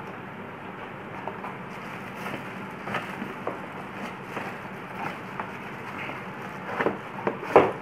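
Plastic bag crinkling and cardboard box flaps rustling as a citrus juicer wrapped in plastic is handled inside its box. There are scattered crackles, the sharpest near the end, over a steady hiss.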